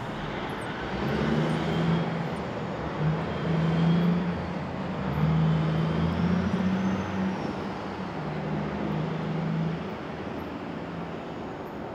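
Highway traffic: a steady rush of tyre noise, with the low drone of passing heavy vehicles swelling and fading several times.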